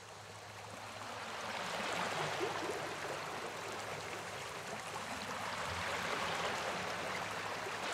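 Shallow waves washing up a sandy beach: a rushing water noise that swells in over the first two seconds, eases a little in the middle and swells again.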